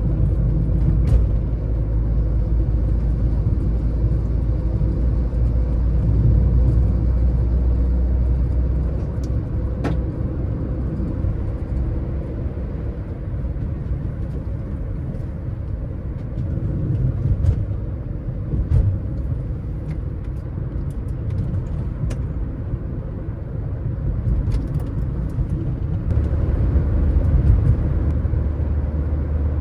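Car driving on the road: a steady low rumble of engine and tyre noise that swells in the lowest range near the start and again near the end, with a few faint ticks.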